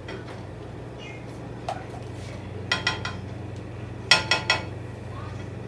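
Metal kitchen utensils clinking against cookware: a single clink, then a ringing pair about three seconds in, and a louder cluster of three a second later, over a steady low hum.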